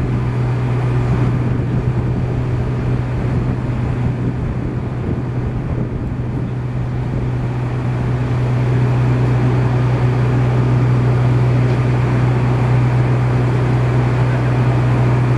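A small engine running steadily with a low, even hum, a little louder in the second half.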